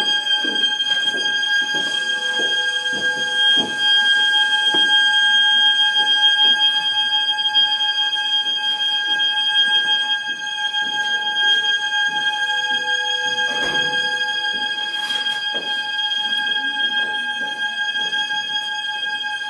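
A single high-pitched drone tone held steady without a break, part of the performance's accompanying music, with scattered soft knocks and taps beneath it.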